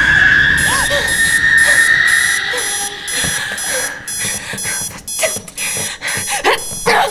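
Alarm clock beeping in a steady rhythm of about two beeps a second, while a high steady tone fades out over the first few seconds.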